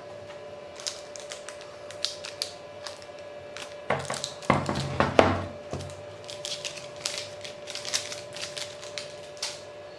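Sharp clicks and knocks of a hard plastic router being handled on a table while its external antennas are swung up on their hinges, with a cluster of louder knocks about four to five and a half seconds in.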